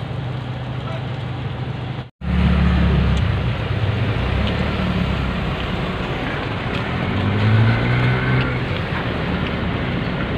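Steady rain at first. After a short break, a car's engine and rain are heard from inside the car as it drives through a flooded street, the engine note rising and then falling near the end.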